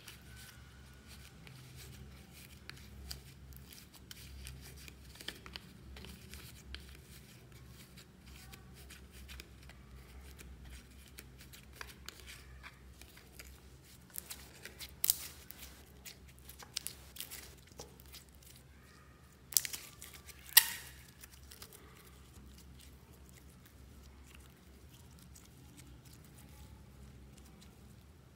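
Hands kneading and squeezing clear slime mixed with glitter, giving soft sticky crackles and clicks. A few sharp pops come near the middle, the loudest about 20 seconds in.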